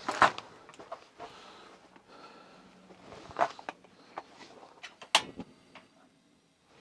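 Objects being handled: three sharp knocks, with light clicks and rustling between them.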